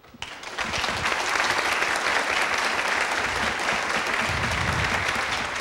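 Audience applauding, starting a moment in and holding steady.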